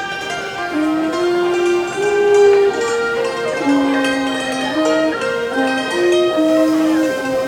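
Thai classical ensemble music: a khim (Thai hammered dulcimer) struck with bamboo beaters, under a bowed Thai fiddle carrying a melody of long held notes that step up and down in pitch.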